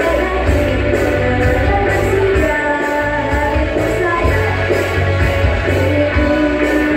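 Rock song with a singer played loud through a PA sound system, with heavy bass and a steady cymbal beat.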